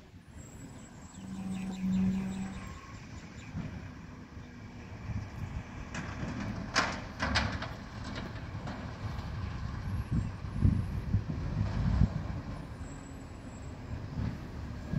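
Garbage truck working at the kerb: its engine running with a steady low rumble, a brief steady tone near the start, and a few sharp metallic clanks about seven seconds in.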